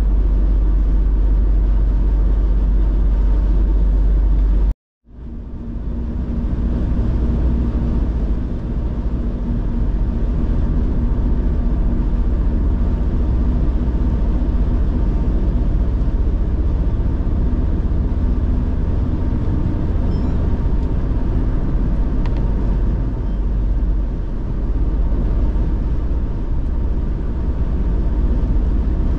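Car driving at speed: steady engine and tyre road noise. It drops out completely for a moment about five seconds in, then fades back up.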